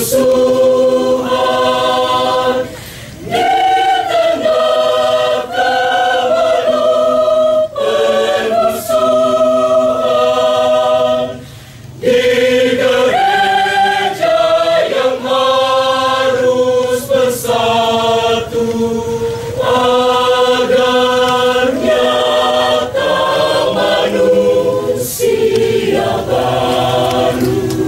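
Choir singing in parts: long held chords sung in phrases, with two brief pauses for breath, about three seconds in and again near twelve seconds.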